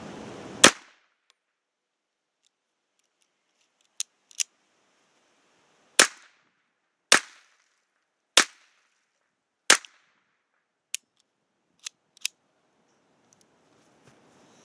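A Phoenix Arms Raven .25 caliber pistol firing Winchester 25 Auto 50 grain full metal jacket rounds: five sharp shots, one about a second in and four more a little over a second apart later on. Fainter sharp clicks fall between and after the shots.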